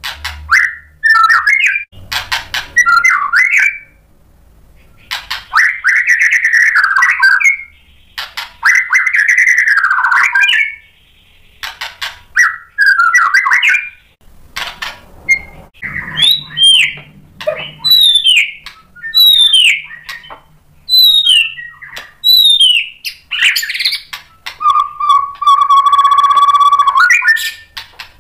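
Male white-rumped shama (murai batu) singing loud, varied phrases: rich warbling bursts with short pauses between them, then a run of quick falling whistles, and a long held whistle with a buzzy edge near the end.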